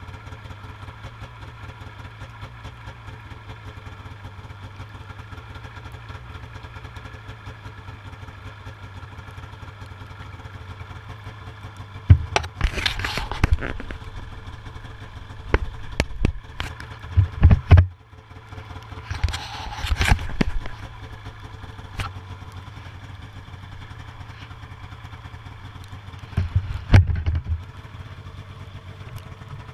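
Snowmobile engine idling steadily. Scraping and rustling noises come in twice, about twelve and twenty seconds in, and several sharp knocks fall in between and again near the end.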